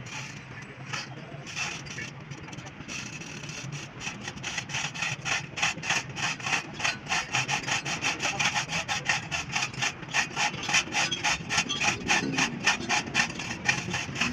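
Hand scraping or rubbing on a truck axle housing: fast, even back-and-forth strokes, about five a second, settling into a steady rhythm about four seconds in after a few irregular scrapes.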